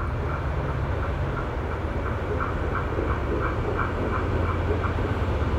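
Diesel railcar approaching slowly, its engine a steady low hum that grows slowly louder, with a faint higher pulse repeating about three times a second.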